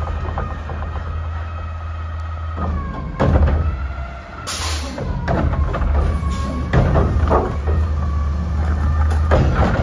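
Front-loader garbage truck's diesel engine running with a steady whine from its hydraulics as the Curotto-Can arm reaches out and grips a trash cart, with clanks from the arm mechanism. A short burst of air-brake hiss comes about halfway through.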